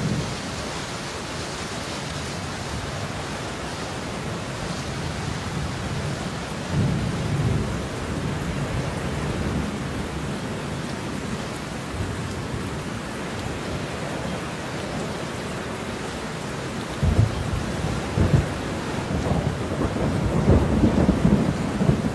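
Steady rain with thunder. A short rumble comes about seven seconds in, and longer, louder rolling thunder fills the last five seconds.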